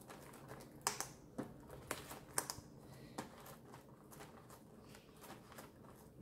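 Light taps and clicks of fingers, nails and a small tool pressing self-adhesive vinyl flat on a plastic cutting mat, with a handful of sharper clicks in the first three seconds, over a faint steady hum.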